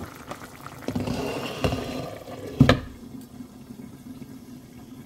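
Bean and green-chilli curry bubbling in a pan, then a light knock and, about two and a half seconds in, a louder clink as a glass lid is set on the pan; after that the bubbling goes on quieter and duller under the lid.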